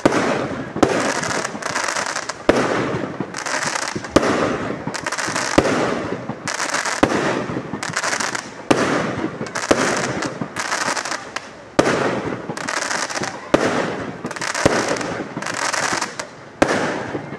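Fireworks going off in quick succession: a sharp bang about every second and a half, with continuous crackling and hissing between them.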